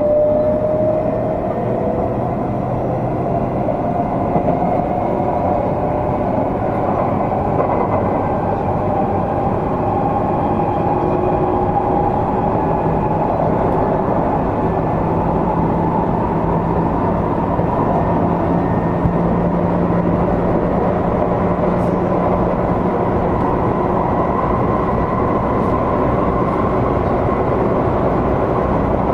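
Seibu 20000 series electric train running. The traction motors' whine rises slowly in pitch through roughly the first ten seconds as the train gathers speed, then holds steady over the continuous rumble of wheels on rail.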